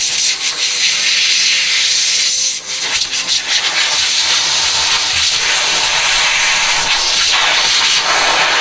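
Compressed-air blow gun hissing steadily as it blows dirt and debris off the fuel pump flange and tank opening, with short breaks about two and a half and three seconds in.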